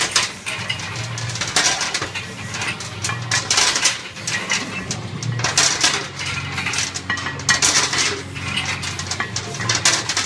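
Iron weight plates clinking and rattling on a loaded T-bar row bar with each rep, a sharp metallic clink about every one and a half to two seconds.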